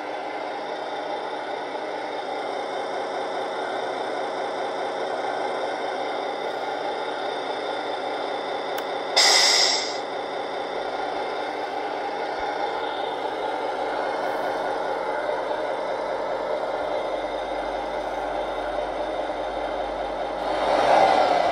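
Electronic sound unit of a Tamiya 1/14 MAN TGX RC truck playing a simulated diesel engine idle through its small speaker, with a short loud hiss about nine seconds in, like an air-brake release. The engine sound swells near the end as the truck moves.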